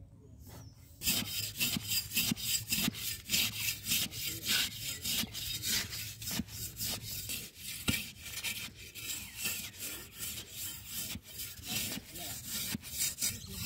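A metal digging blade scraping and cutting into the wet clay walls of a pit, in quick repeated rasping strokes with the odd sharper knock, starting about a second in.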